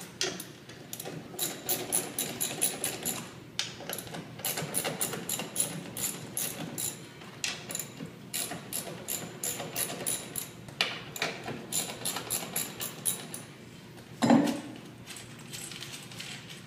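Hand ratchet wrench clicking in quick runs of strokes with short pauses, working the bolts of the metal shipping brackets that hold a network switch chassis to its wooden pallet. One louder thump near the end.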